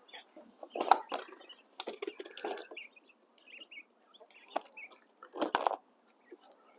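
Rustling and scuffling as a quail is caught and handled in its pen, coming in several short bursts.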